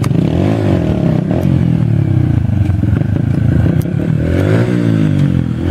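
Small dirt bike engine running and revving, its pitch rising and falling several times.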